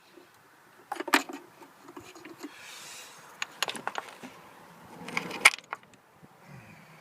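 Small metallic clinks and rattles of tools and loose parts being handled. There are sharp clicks about a second in, again around three and a half seconds, and the loudest about five and a half seconds in.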